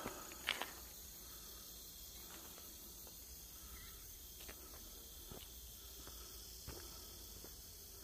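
Faint outdoor field ambience: a steady, thin, high-pitched chirring of insects such as crickets, with a few light clicks or footsteps, the loudest about half a second in.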